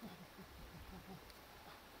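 Near silence, with a few faint, low murmurs from a person's voice in the first second or so.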